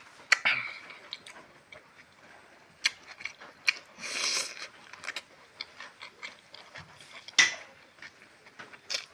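Close-miked eating sounds: wet mouth clicks and smacks while chewing, with a crunchy bite into a raw cucumber stick about four seconds in.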